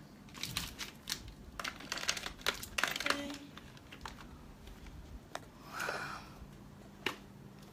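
Cardboard cartons and plastic cosmetic packaging being handled: a quick run of clicks, taps and crinkles for about three seconds, then a soft swish and one last click. A faint short two-note tone sounds about three seconds in.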